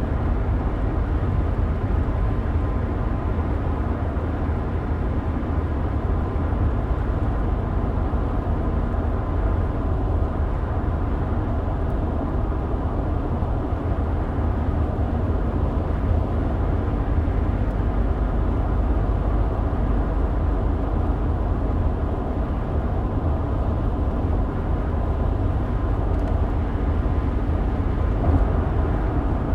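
Steady road noise heard from inside a moving car: a low tyre and engine rumble with an even hiss and no sharp events.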